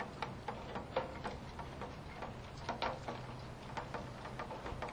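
Irregular clicks and taps, a few a second, on the housing and mount of a moving camera as it travels over wet, broken pavement, over a low steady hum.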